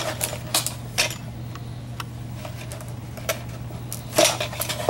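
Clear plastic blister package holding a stainless steel sink strainer, handled in the hand: scattered clicks and crinkles of plastic, with a cluster of them near the end, over a steady low hum.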